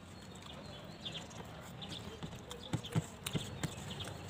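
Eating by hand from a steel plate: fingers mixing rice and dal in the thali, with irregular small clicks and taps against the metal, a few sharper ones about three seconds in.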